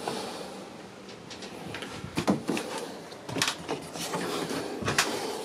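Several clunks and knocks over a steady hiss, the sharpest about two, three and a half, and five seconds in.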